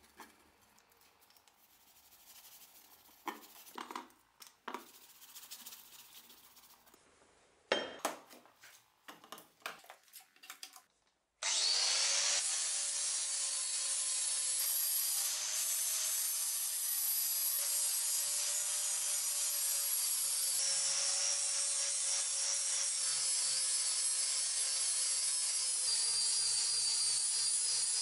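Faint scratching and clicking of a hand tool on the steel cleaver blade, then about eleven seconds in an angle grinder starts suddenly and runs steadily, its abrasive disc grinding the edge of the old steel cleaver blade to shape it.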